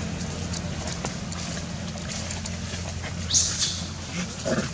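A macaque gives a short grunting call near the end, over a steady low hum. There is a brief harsh high-pitched hiss about three and a half seconds in.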